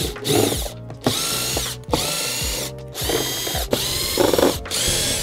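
Makita cordless driver spinning out the Phillips screws of a VW Transporter's rear threshold strip, in several short runs of under a second each with brief pauses between.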